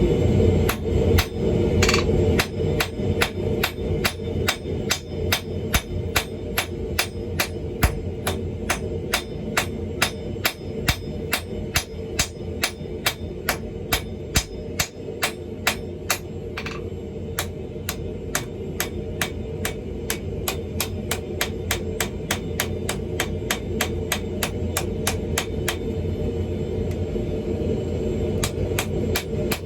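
Hammer blows forging a 2-inch steel ball bearing, struck in a steady rhythm of about two to three blows a second, over a steady low rumble.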